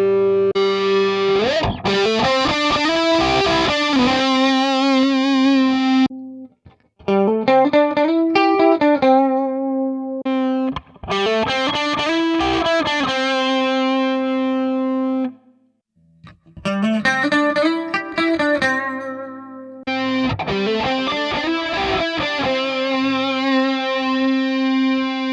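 Electric guitar played through a Digitech RP1000 multi-effects pedalboard: sustained lead notes with upward string bends and vibrato. The playing comes in three phrases, split by two brief silences.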